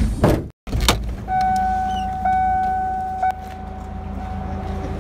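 Car engine running with a steady low rumble. About a second in there is a sharp thump, followed by a steady high-pitched tone held for about two seconds.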